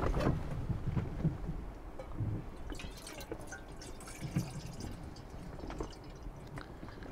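Water poured from a plastic jerrycan into an aluminium cooking pot, splashing and dripping, with a few low knocks in the first couple of seconds.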